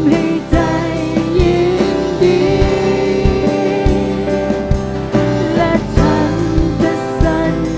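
A church worship team of several singers singing a slow worship song in Thai, with held notes, accompanied by a keyboard.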